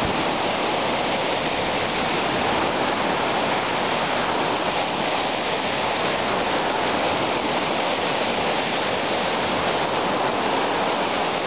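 Lake Michigan surf: small waves breaking and washing up a sandy beach in a steady, unbroken rush.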